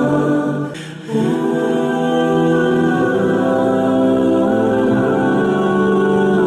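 Background music of slow, sustained choir-like vocal chords, with a brief dip in level about a second in.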